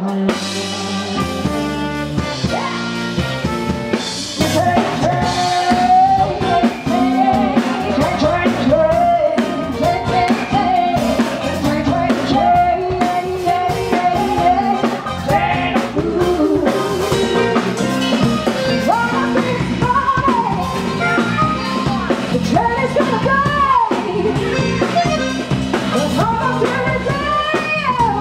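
Live band playing an upbeat song: drum kit keeping a steady beat under electric guitar and keyboard, with singing.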